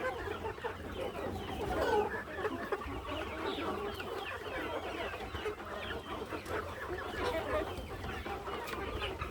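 A flock of country chickens clucking, many short calls overlapping continuously.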